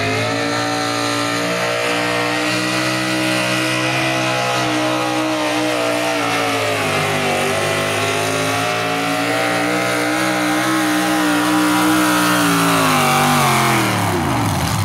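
V8 hot rod pulling tractor engine running at high revs under heavy load while pulling a sled, its pitch sagging and recovering midway, then dropping off sharply near the end as the throttle comes off.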